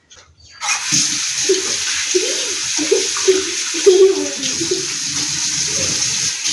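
Kitchen faucet turned on about half a second in, then water running steadily into a stainless steel sink as hands rinse under the stream.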